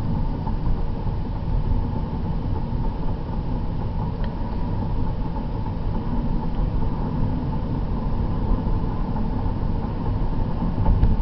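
A car driving along a road, heard from inside the cabin: a steady, mostly low noise of engine and tyres.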